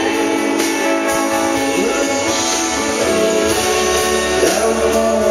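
Live country band playing: acoustic guitars strummed, with electric guitar and drums.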